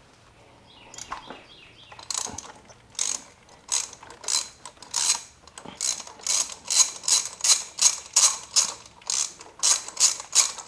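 Hand ratchet with a spark-plug socket clicking as it is swung back and forth to unscrew old spark plugs. It is faint at first, then from about two seconds in it clicks steadily about three times a second.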